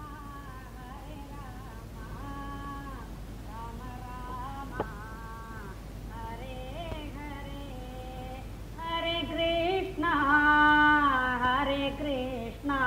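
Voices singing a devotional chant in long held, gliding phrases, growing louder and fuller from about nine seconds in, with a single sharp click just before five seconds.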